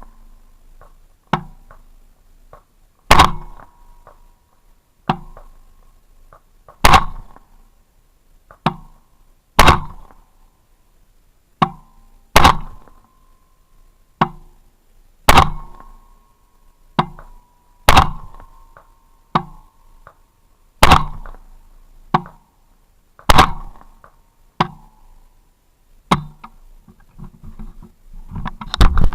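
AR-15 rifle firing single shots at a steady pace, about one loud shot every two and a half to three seconds, with fainter shots in between.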